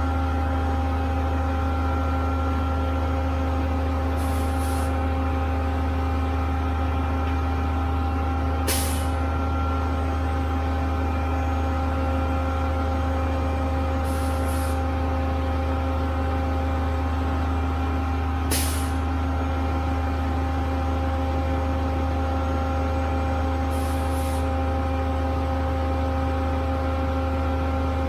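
Diesel engine of a 38-meter concrete boom pump truck running at a steady, unchanging speed, driving the hydraulics as the boom unfolds. Short sharp hisses of air cut in about every five seconds, some of them doubled.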